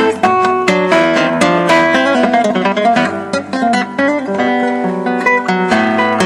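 Solo classical guitar played with the fingers: a quick run of plucked notes and chords on nylon strings, the notes ringing over one another.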